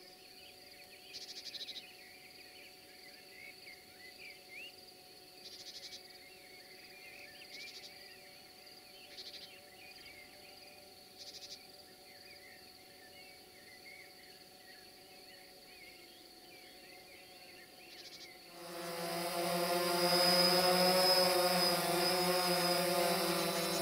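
Insect trills, short and repeated every couple of seconds, with faint chirping over a steady low hum. About eighteen seconds in, a much louder steady noise swells up and holds.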